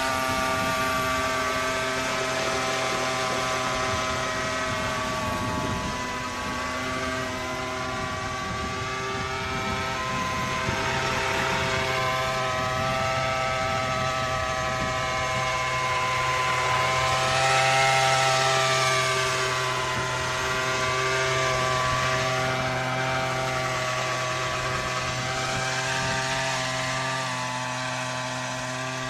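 Gas-powered radio-control model airplane in flight, its small two-stroke engine running steadily like a chainsaw. The pitch swoops up and down as the plane makes passes, loudest about two-thirds of the way through.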